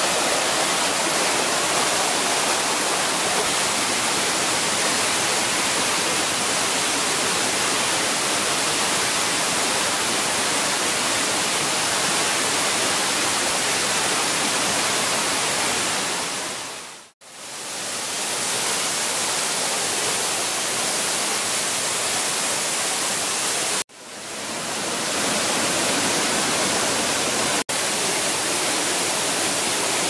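Water rushing and cascading over rocks in a waterfall and rocky stream, a steady hiss that drops away briefly twice in the second half and once more near the end.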